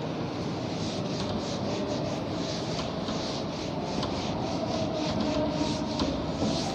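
Felt whiteboard duster wiping a whiteboard clean in repeated back-and-forth strokes, about two a second, over a steady low hum.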